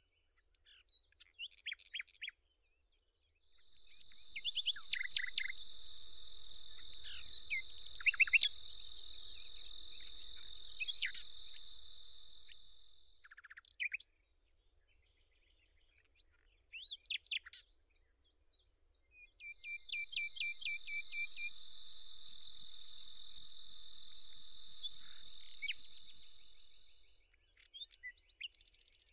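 Songbirds chirping with short, quick calls, over a shrill insect trill that pulses evenly and high; the trill runs for about ten seconds, stops, and comes back for about eight seconds later on.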